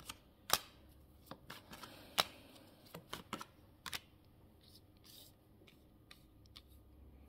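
Tarot cards being drawn and laid down one by one on a hard tabletop: scattered soft taps and slides, the sharpest about half a second and two seconds in.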